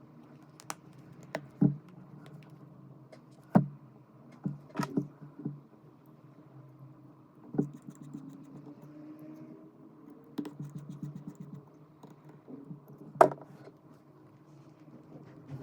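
Small hand tools and phone parts clicking and tapping on a hard work surface, a dozen or so irregular sharp clicks over a steady low hum.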